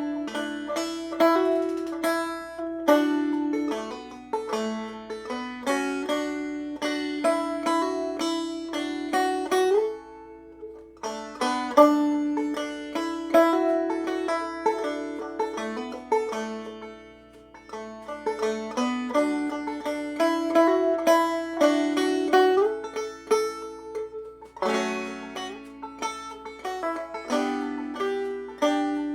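Five-string banjo played clawhammer style, slowly and without singing: a steady run of plucked notes and chords, with a short break about ten seconds in.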